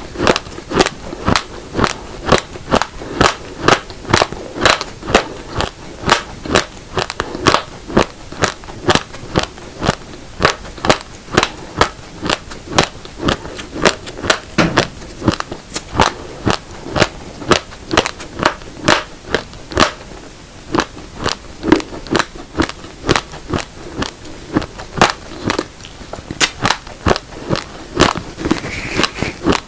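Close-miked crunching of raw, uncooked black and red rice grains being chewed: a steady run of sharp crunches, about two or three a second.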